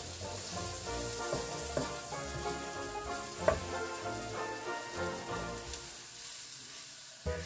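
Butter and flour sizzling in a frying pan as a wooden spatula stirs them into a roux, a steady hiss that cuts off at the very end. A single sharp tap about halfway through, over background music.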